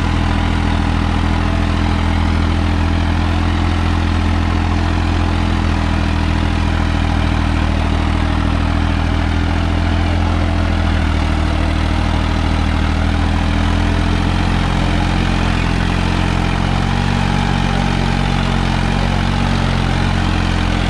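Farmtrac 60 tractor's diesel engine running steadily under load while pulling a weighted disc harrow, its note shifting slightly about halfway through.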